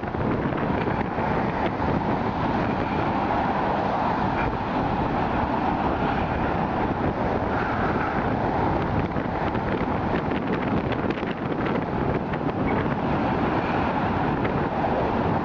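Steady traffic noise from cars on the bridge roadway, mixed with wind on the microphone.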